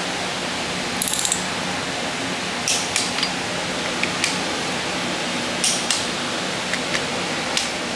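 Click-type torque wrench tightening small-block Chevy 350 cylinder head bolts in the first stage at 25 foot-pounds: a quick run of ratchet clicks about a second in, then sharp single and paired clicks every second or two as the wrench breaks at its set torque. A steady hiss runs underneath.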